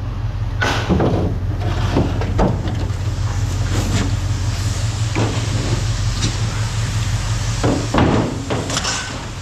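Scrap metal parts being handled, giving irregular clanks and knocks of metal against metal over a steady low hum.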